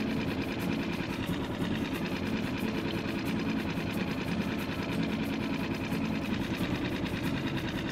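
Outboard motor on a small aluminium boat running steadily at low trolling speed, an even engine drone with a rapid pulse.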